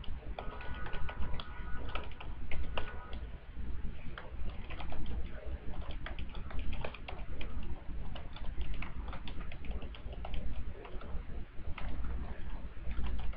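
Typing on a computer keyboard: irregular key clicks with a steady low hum underneath.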